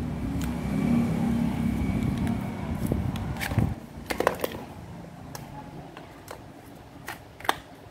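Cordless drill/driver motor running steadily under the trigger, then released just under four seconds in and stopping abruptly. A few sharp clicks and knocks of the tool being handled follow.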